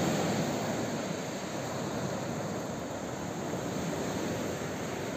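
Steady sea surf washing onto the beach, an even rushing noise without breaks.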